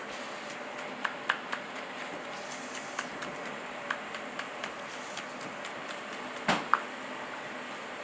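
Kitchen knife slicing green chillies on a wooden chopping board: scattered light knocks of the blade on the board, with a louder double knock near the end, over a steady background hiss.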